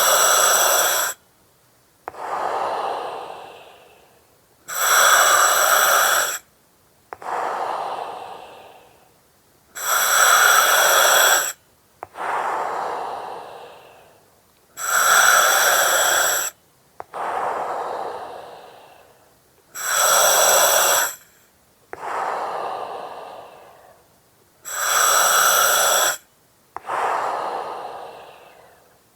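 Slow breathing through an oxygen mask. Each breath is a loud hiss of about a second and a half that starts and stops abruptly, followed by a softer breath that fades away. The cycle repeats about every five seconds, six times.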